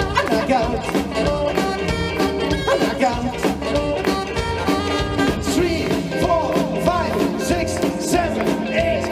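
Live rockabilly band playing: electric guitars over upright bass and drums, with a steady beat.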